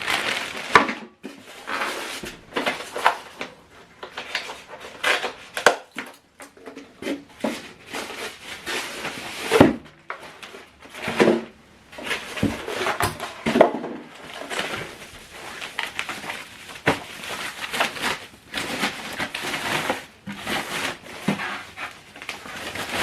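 Unpacking sounds: a boxed subwoofer and its cardboard and packing being handled, with irregular knocks, scrapes and rustles and one sharper knock about ten seconds in.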